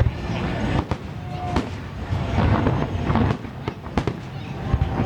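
Aerial fireworks exploding: a series of sharp bangs at irregular intervals over a steady low rumble of further bursts.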